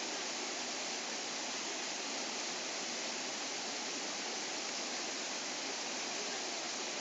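Rushing stream water pouring over rocks: a steady, even hiss.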